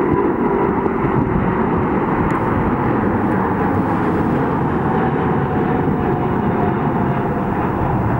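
Twin jet engines of a Boeing 787 Dreamliner at takeoff thrust: a loud, steady roar as the airliner lifts off and climbs away.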